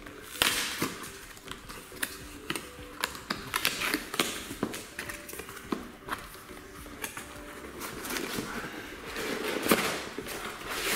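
Cardboard box being opened by hand: flaps pulled open and the inner cardboard packing handled, giving irregular sharp clicks, crackles and rustling.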